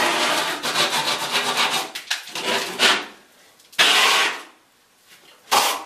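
Steel trowel scraping a lime-based skim coat across a wall: one long continuous pass, then three shorter strokes with brief pauses between them.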